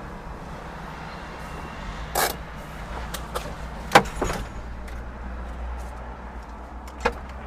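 A steady low vehicle hum, with a few sharp knocks and clicks scattered through it; the loudest knock comes about four seconds in.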